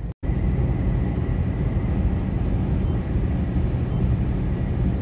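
Road noise inside a moving car's cabin: a steady low rumble of engine and tyres at highway speed. The sound cuts out for a split second just after the start.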